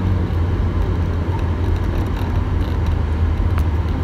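Steady road and engine noise inside a moving car: a constant low rumble.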